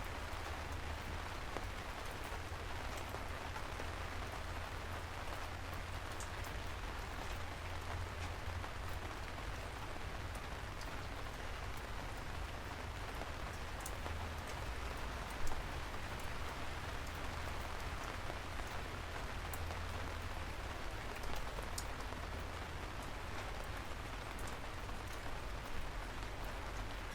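Steady rain falling, an even hiss with a low rumble underneath and scattered individual drops ticking; one drop lands louder about halfway through.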